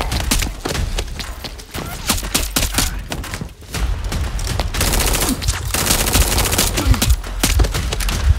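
Rapid blaster fire in quick bursts of shots, densest and fastest from about four and a half to six and a half seconds in.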